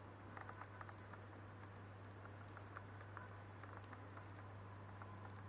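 Near-silent aquarium room tone: a steady low hum with faint, scattered light ticks.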